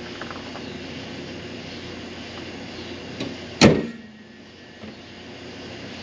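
A steady low hum, then a single loud slam of a car body panel shutting, about three and a half seconds in, after which the background hum is quieter.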